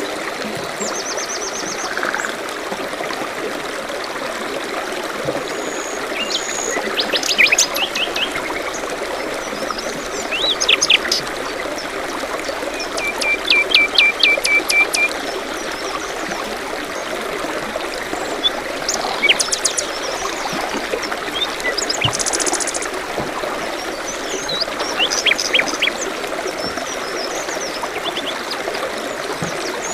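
A forest stream trickling steadily, with several songbirds calling and singing over it: short high trills and chirps throughout, and a run of quick repeated notes about halfway through.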